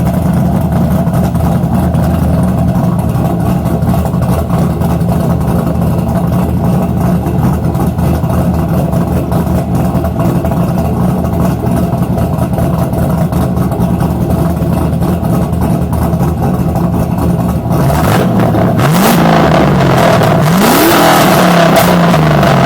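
5.3 LS V8 with a Sloppy Stage 3 camshaft idling with a choppy, uneven cammed idle. About eighteen seconds in it is revved in a couple of quick blips, the pitch rising and dropping back each time.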